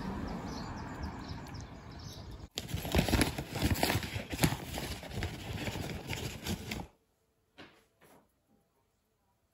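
Outdoor street ambience fading, then after a sudden cut a dense run of sharp, irregular clicks and knocks for about four seconds that stops abruptly, followed by a couple of faint taps.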